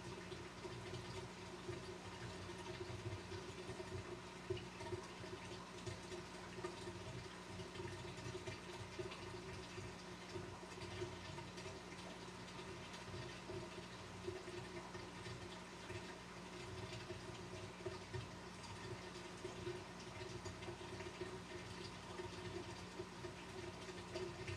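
The water pump of a 200-gallon aquarium humming steadily, with the tank's circulating water trickling and bubbling.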